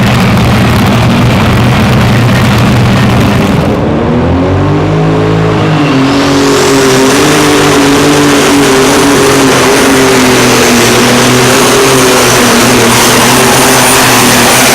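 Competition pulling tractor's engine running loud at high power. A high whine rises about six seconds in and then holds steady over the engine.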